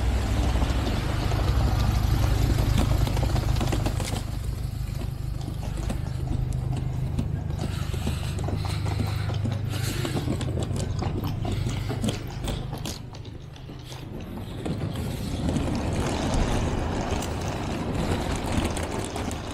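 Small wheels of a rolling suitcase rattling and rumbling over paving stones as it is pulled along, with street traffic behind. The rumble drops away about 13 seconds in.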